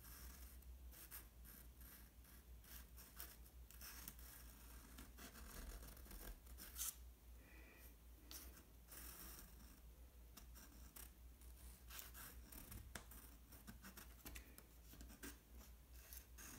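Faint scratching of a charcoal pencil on sketchbook paper, a run of quick, short strokes, with one sharper tick about seven seconds in.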